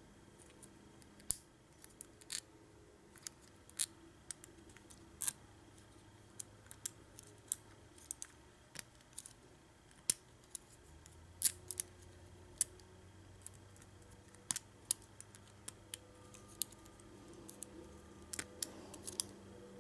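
Lock pick and tension wrench working the pins of a five-pin US Lock deadbolt cylinder during single pin picking: small, sharp metallic clicks and ticks at irregular intervals.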